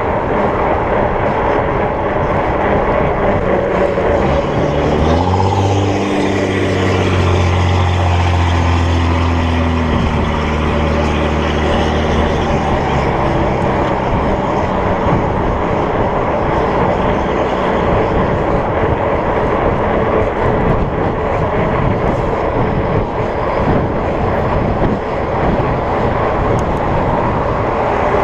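Steady rush of wind on the microphone and road noise from a fat bike riding on pavement into a headwind. A motor vehicle's engine passes from about five to twelve seconds in, rising and then falling in pitch.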